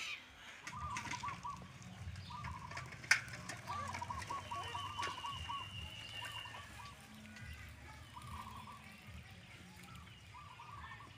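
Short trains of rapid, pulsing animal calls coming every second or two, over a low steady rumble, with a single sharp click about three seconds in.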